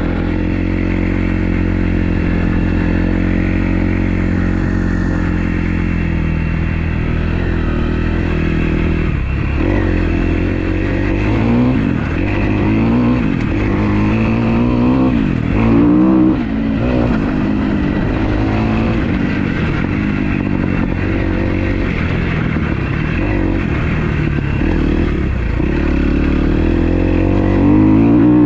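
2012 Kawasaki KX250F's single-cylinder four-stroke engine under way on the track. It holds a steady pitch for about nine seconds, then revs up and down again and again as the throttle is worked.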